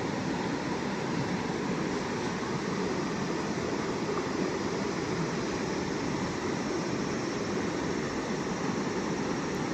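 Steady rushing outdoor noise, even and unbroken, with no distinct events.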